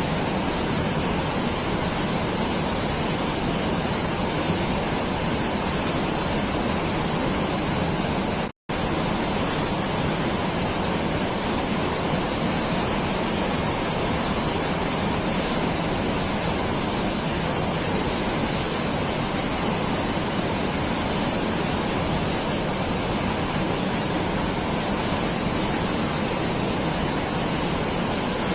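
Steady rushing noise at a constant level, cut off for an instant about eight and a half seconds in.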